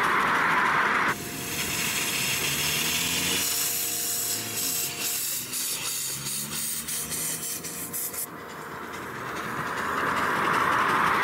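A small DC motor drives a miniature homemade model train along a metal-rod track, making a steady whirring hiss. The sound changes character about a second in, where a thin steady tone and brief rising whines come in, and again near the end, where it returns to the plain hiss.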